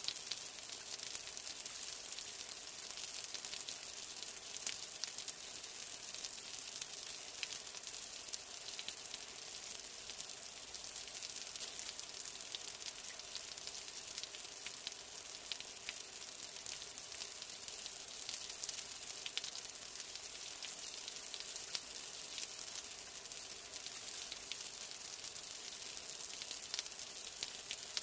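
Steady rain falling: an even hiss peppered with many small drop ticks.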